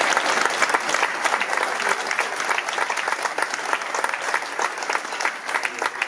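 Audience applauding, the clapping thinning out a little toward the end.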